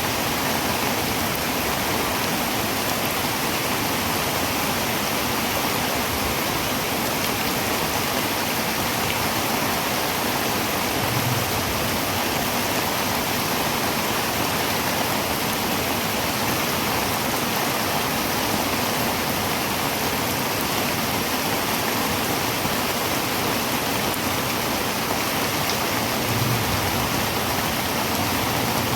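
Heavy rain on a tin roof: a steady, dense hiss.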